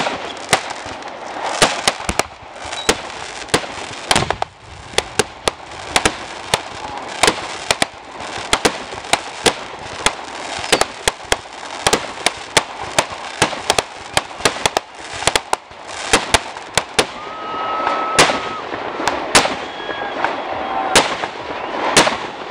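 Aerial fireworks bursting in quick succession: a dense run of sharp bangs and crackles, several a second, with no break.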